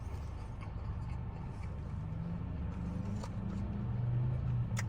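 Low steady rumble inside a parked car, with a couple of faint clicks.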